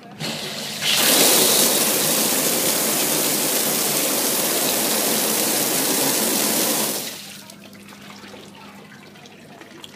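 Hydro massage jets of a wooden hot tub spraying water hard across the tub above the water line and splashing against the wall: a steady rush of spray that comes up about a second in, then drops off about seven seconds in to a quiet trickle.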